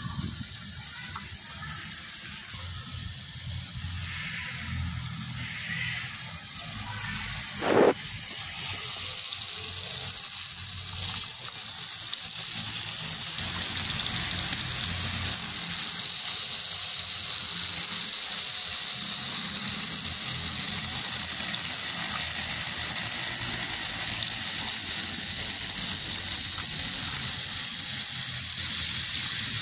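Small DC motor and gearbox of a homemade miniature tractor whirring steadily, a high hissing whir that sets in after a sharp click about eight seconds in.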